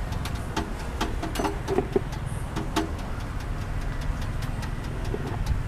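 Clinks and knocks of a noodle strainer against a steel stockpot and ceramic bowls, several in the first three seconds and fewer after, over a steady low rumble of street traffic.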